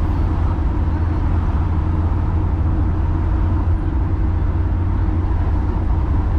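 Volkswagen Vanagon van driving on a paved mountain highway: a steady low rumble of engine, tyres and wind noise.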